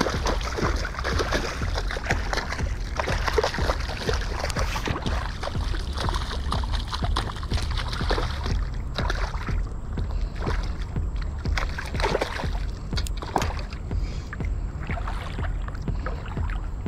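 A hooked ladyfish thrashing and splashing in shallow river water: splashes come thick and fast at first, then as separate splashes every second or two as the fish is drawn in close, over a steady low rumble.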